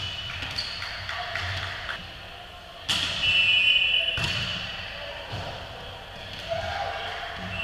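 Volleyball court sounds in a gym: a ball bouncing on the hardwood floor with scattered thuds. About three seconds in, a referee's whistle blows shrilly for about a second, and a sharp smack follows just after.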